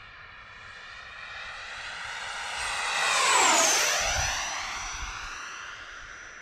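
Electric ducted-fan whine of a 90 mm, 12S-powered RC F-18 model jet making a fly-by pass: it grows louder, peaks about halfway through with a sharp drop in pitch as it passes, then fades.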